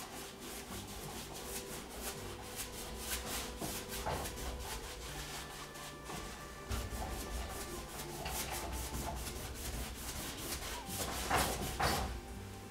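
A large paintbrush scrubbing pale sky paint onto a stretched canvas in quick repeated strokes, with two louder strokes near the end. Soft background music plays underneath.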